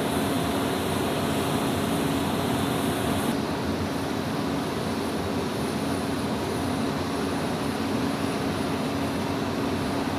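Jet aircraft engines running steadily, a continuous noise with a constant low hum. The high hiss drops away abruptly about a third of the way in, as at a change of shot.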